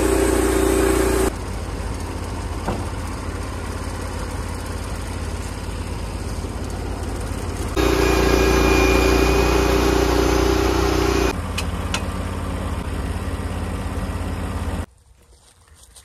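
Norwood portable bandsaw mill's gas engine and band blade running at high speed. It drops to a quieter, lower running about a second in, speeds up again from about eight to eleven seconds, drops back, and shuts off near the end.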